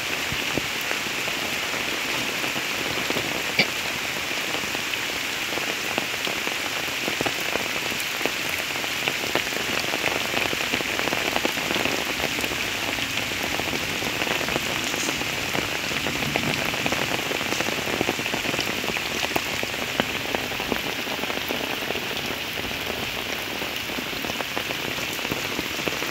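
Steady rain falling on leaves, a muddy path and flooded field water: a dense, even hiss with scattered sharp drip ticks.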